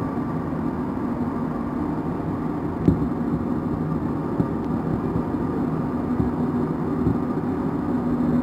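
Santiago Metro NS-16 rubber-tyred train running through a tunnel, heard from on board: a steady rumble with a low hum, a sharp knock about three seconds in and a few lighter knocks later.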